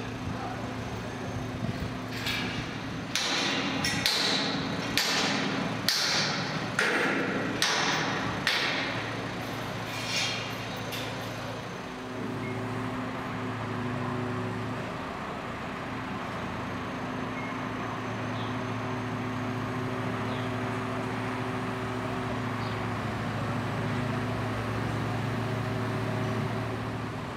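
A run of about eight sharp metal clanks with ringing, from steel work on a tower crane's lattice mast during its erection, in the first ten seconds or so. Under them an engine drones steadily throughout.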